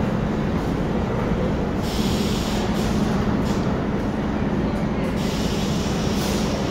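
R32 subway train standing at the platform with its doors open, giving a steady low hum, with two bursts of hissing: one about two seconds in, another near the end.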